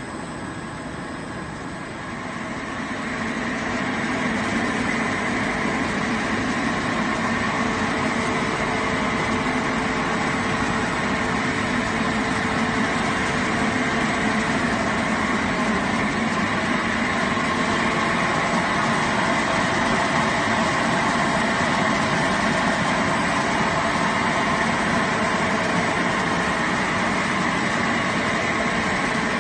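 KS-FLL65 blown-film extrusion line running: a steady mechanical hum and rush from the extruder drive and air-ring blower, with a faint held tone in it, getting louder about three seconds in and then holding steady.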